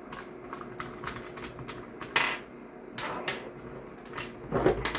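Irregular small clicks, taps and metallic clinks of hand tools and parts being worked while a part is removed from an airsoft rifle. The louder knocks come about two seconds in, around three seconds, and in a cluster near the end.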